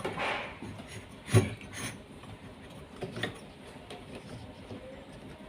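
A few separate knocks and clicks of hard parts being handled during a washing machine repair, the loudest about a second and a half in.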